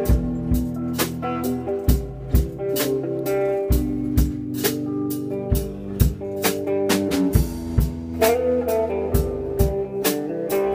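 A band playing live: a drum kit hitting a steady run of sharp strokes under held electric guitar and bass notes.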